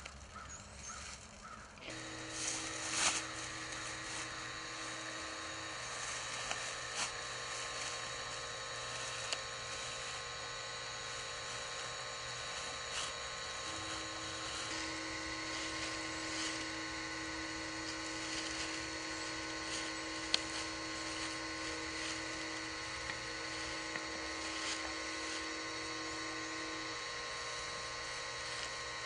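Motor-driven well pipe puller running steadily as its wheels haul the drop pipe up out of the well, a small motor's steady hum of several tones that starts about two seconds in, with a few light clicks.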